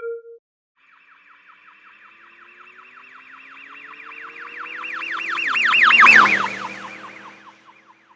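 Siren sound effect with a fast, rapidly repeating whooping tone, passing by: it swells to a peak, drops in pitch as it goes past, and fades away.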